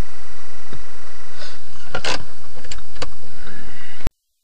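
Loud dashcam audio from inside a stopped car: a steady rumble with scattered clicks and knocks, the loudest a little after two seconds in. The sound cuts off abruptly about four seconds in.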